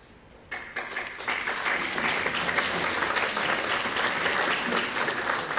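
Audience applauding, breaking out about half a second in and going on steadily.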